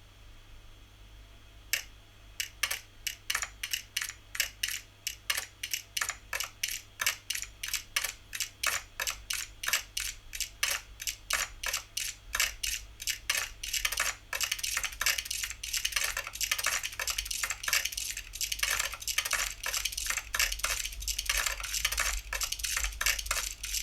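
Keystroke clicks of an invisible, hand-tracked keyboard interface, like typing on a keyboard with a metallic clink. They begin about two seconds in at roughly two a second, then quicken into a dense, rapid clatter past the halfway point.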